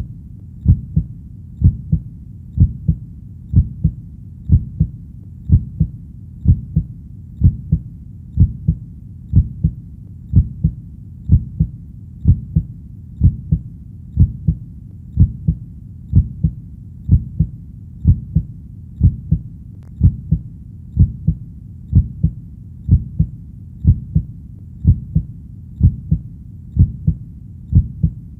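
Heartbeat sound: a steady double beat (lub-dub), a bit over one pair a second. The beats are low in pitch, over a faint steady hiss.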